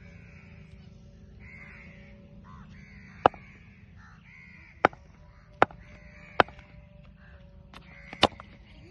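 Crows cawing repeatedly, with several sharp knocks. The last and loudest, about eight seconds in, is a cricket bat striking a tape ball.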